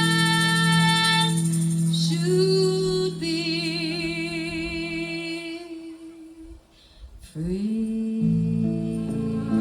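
Live jazz trio of voice, saxophone and bass playing a slow closing passage: long held melody notes with vibrato over sustained bass notes. The sound thins almost to silence a little past the middle, then the bass comes back in.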